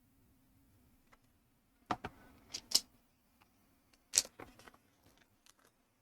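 ZURU MAX plastic building bricks clicking and clattering as pieces are handled: a few sharp clicks, the loudest about two seconds and four seconds in, with lighter taps after.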